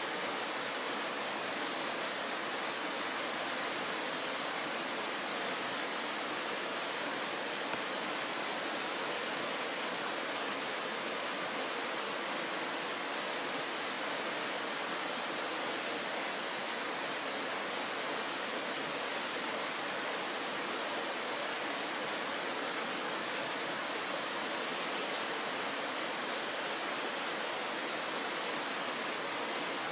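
Shallow mountain stream rushing steadily over a stony bed and a small riffle, an even hiss of running water.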